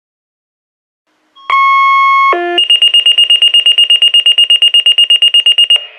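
Motorola two-way radio sounding alert tones through its speaker: a held beep about a second and a half in, a brief lower tone, then a fast high-pitched beeping, about nine beeps a second, for some three seconds.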